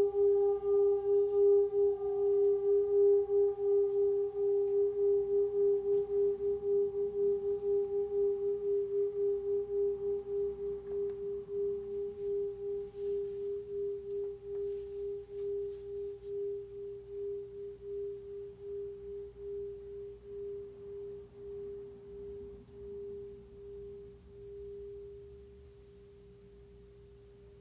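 A large ride cymbal ringing with one pure, sustained tone that pulses a couple of times a second. Its fainter upper tones fade first, and the tone dies away slowly until it is gone about 25 seconds in.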